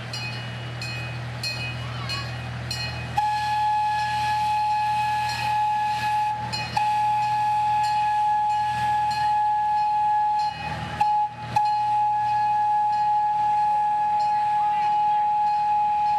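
Miniature passenger train pulling out with its engine humming and its bell ringing about twice a second. From about three seconds in a long steady horn note sounds, broken briefly twice.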